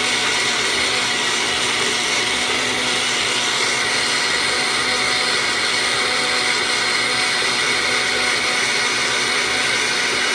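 Countertop blender motor running steadily, blending milk, mango and ice into a milkshake.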